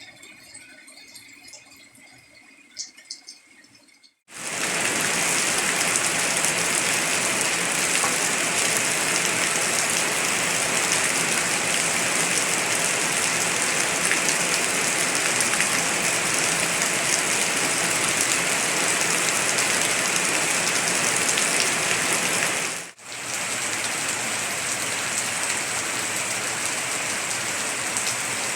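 Heavy rain pouring down in a dense, steady hiss. It starts abruptly about four seconds in, after a quieter stretch with a few ticks, and drops out for an instant near the end before carrying on slightly softer.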